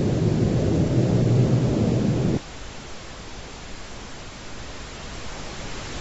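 Loud low rumbling drone that cuts off abruptly about two and a half seconds in, leaving a steady hiss that slowly grows louder.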